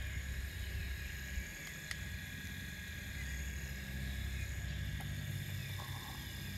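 Motors of an RC model excavator running as the boom swings and the bucket lowers into dirt: a steady low hum that grows louder through the middle, over a faint steady high whine.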